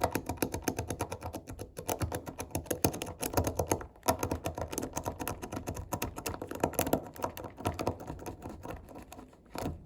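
Rapid, irregular small metallic clicks and ticks of a Multipick Abona hook pick lifting the spring-loaded pins inside a CISA 160/50 padlock's keyway under light tension, several clicks a second.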